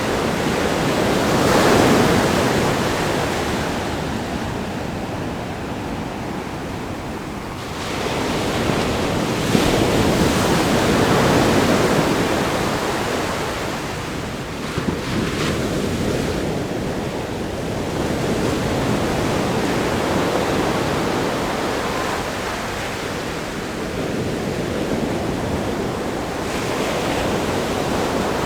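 Ocean waves breaking against a rock groin and washing up the sand: a continuous surf rush that swells with each breaker, the loudest surges about 2 seconds in and from about 8 to 12 seconds, with a few sharp splashes or clicks between.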